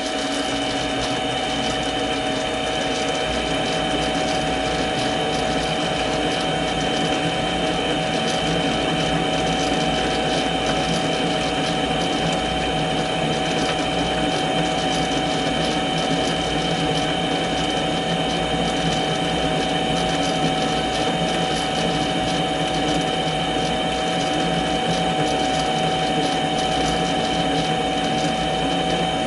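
Mini lathe running steadily, its gear train giving a constant whine and rattle, while a spring parting tool feeds into a deep parting cut.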